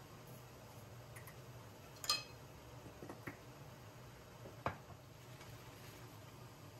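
Kitchenware being handled: a sharp ringing clink about two seconds in, then a few soft knocks and one more sharp knock, over a low steady hum.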